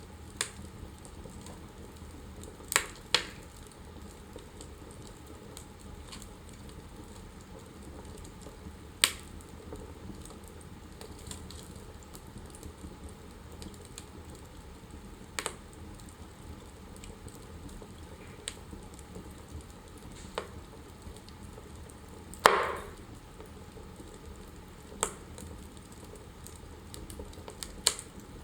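Fire burning in a fireplace, crackling: a steady soft hiss with sharp single pops every few seconds, the loudest about three-quarters of the way through.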